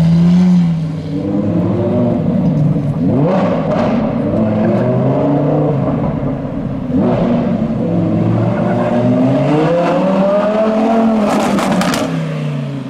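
Lamborghini supercar engines revving and accelerating away one after another, the pitch climbing and dropping with each rev. Sharp exhaust cracks come about three and a half seconds in and again about seven seconds in, with a quick cluster of pops near the end.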